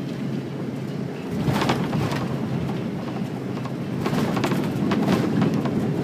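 Jet airliner cabin noise during a fast runway roll: a steady rumble of engines and wheels on the runway, growing louder about a second and a half in and again around four seconds, with short rattling knocks from the cabin fittings.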